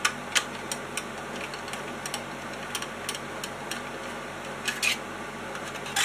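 Irregular small metallic clicks and ticks of a long screwdriver working in the mounting screws of a Mac Pro CPU heatsink, the screws being run in but not yet tightened down, over a faint steady hum.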